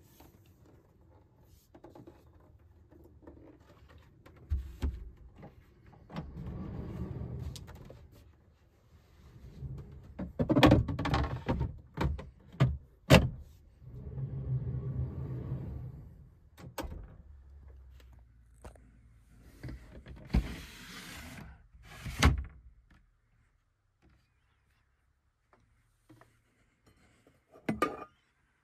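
Folding camping table with aluminium legs being folded and stowed, then things being put away in a van's kitchen cupboard: a run of knocks, clatters and thunks, loudest about halfway through, with several longer scraping or rolling sounds of a couple of seconds each.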